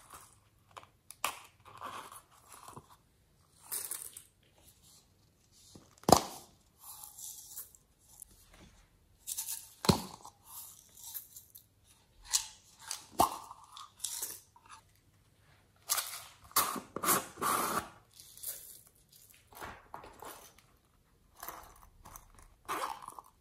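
Slime being worked by hand with clay mixed in: irregular bursts of wet squishing and crackling, broken by a few sharp pops.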